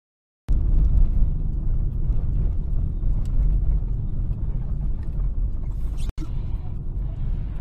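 Steady low rumble of tyre and engine noise inside a moving car, picked up by a dashcam microphone. It starts suddenly about half a second in after silence and cuts out for an instant near the end.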